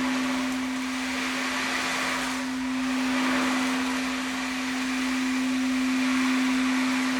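A singing bowl sounding one steady low tone, with a soft rushing hiss that swells and fades.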